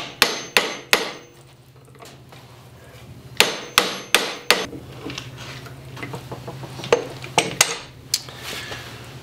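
Sharp metal-on-metal taps and knocks at a wood lathe's headstock as the draw collet is undone and the bottle stopper taken off its threaded mandrel. The knocks come in three quick groups of about four: at the start, near the middle and near the end.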